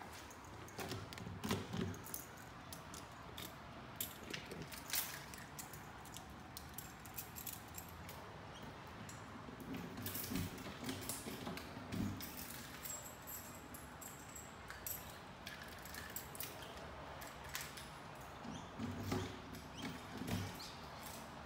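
Faint footsteps and phone handling noise: a few clusters of low thumps with scattered light clicks over a quiet background.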